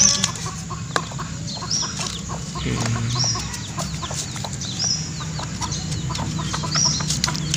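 Hens clucking, with a short high chirp repeating about every second and a half. Light clicks of a small knife cutting torch ginger flower stalk run through it.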